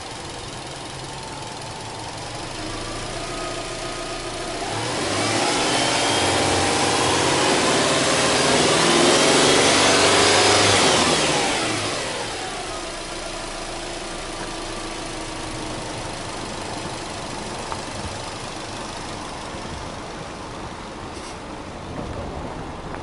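Subaru Legacy B4 2.0GT's turbocharged 2.0-litre flat-four engine, stationary, revved from idle: the revs climb over a few seconds, are held high for several seconds, then fall back to a steady idle about halfway through.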